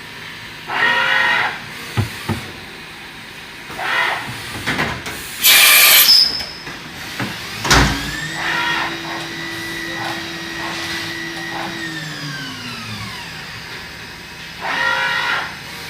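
A Mazak VTC-300C CNC vertical mill running under power. It makes several short mechanical whirs, then a loud blast of air hiss about five seconds in. A knock follows, and the spindle whines up to speed, holds a steady pitch for about four seconds and winds down.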